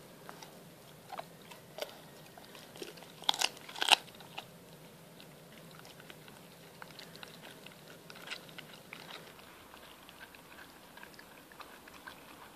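A dog, an Appenzeller–Stabyhoun cross, gnaws a raw shank from a young goat, its back teeth cracking through the still-soft leg bone. Two loud crunches come about three to four seconds in, followed by softer, scattered gnawing clicks.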